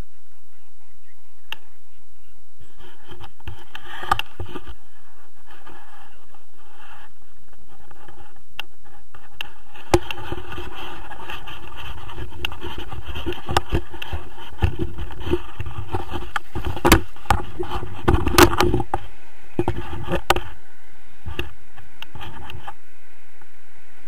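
Wind rumble and scraping, knocking handling noise on a camera carried by a tandem paraglider crew during the launch run and takeoff. The rumble is heaviest from about ten to twenty seconds in, with a string of sharp knocks near the middle of that stretch.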